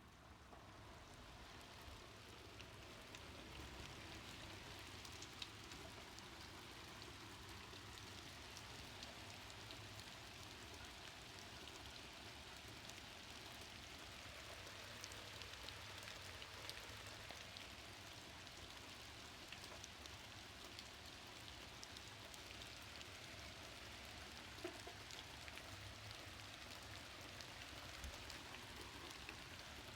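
Faint, steady rain falling, with scattered individual drops ticking on a surface.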